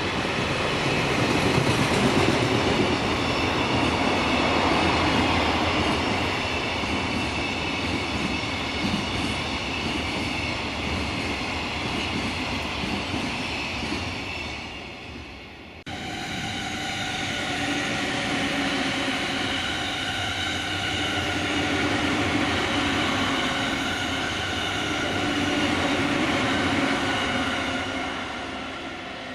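Electric Tokaido Line train passing on the rails, its running noise fading away; then, after an abrupt cut about halfway through, another train passing with several steady tones over the rolling noise, fading near the end.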